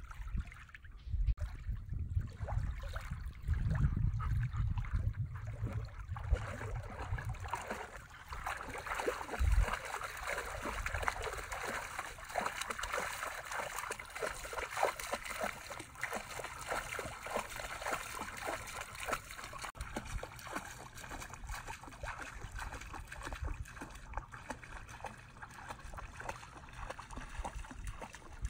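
Shallow water splashing and trickling as an Airedale terrier wades through it, in many small irregular splashes. A low rumble is also there during the first several seconds.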